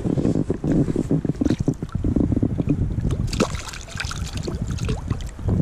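Small wild brown trout splashing at the river surface as it is played to hand on a fly line, in a run of short sharp splashes that are strongest about three to four seconds in. Wind rumbles on the microphone underneath.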